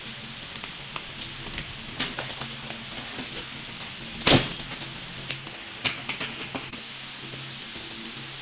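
A cardboard parcel being hastily torn open and handled: scattered sharp clicks and rustles, with one loud knock about four seconds in, over a low steady hum.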